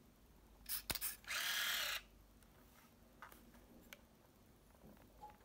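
Olympus SuperZoom 80G compact 35mm camera firing: a few small clicks and a sharp shutter click, then its built-in motor whirs steadily for just under a second. Faint handling clicks follow.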